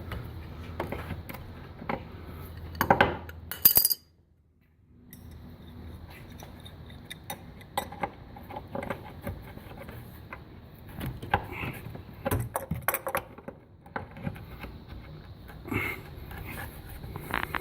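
Scattered metallic clinks and taps of a wrench working on bolt nuts and metal hardware. There is a brief break in the sound about four seconds in.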